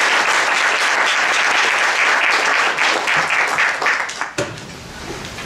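Audience applauding at the end of a lecture, the clapping dying away about four seconds in.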